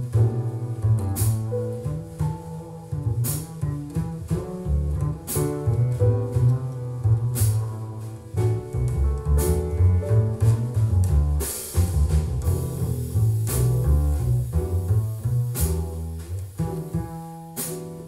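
Jazz recording played back through a pair of JBL Studio 280 three-way floorstanding loudspeakers: an instrumental passage with no singing, a deep double bass line under cymbal strikes about every two seconds.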